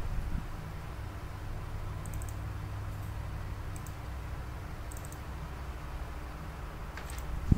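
Quiet room tone: a steady low hum with a faint steady tone and a few faint, very high ticks.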